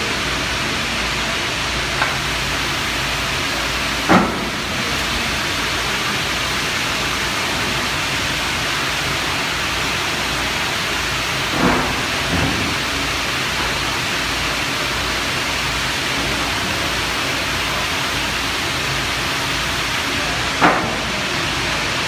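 Steady loud hiss of industrial machinery, broken by a handful of short metal clanks, the loudest about four seconds in and another near the end.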